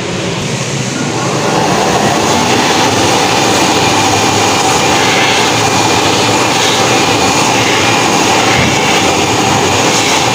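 Electric hand dryer blowing: a loud, steady rush of air with a steady whine, starting up about a second in and then holding.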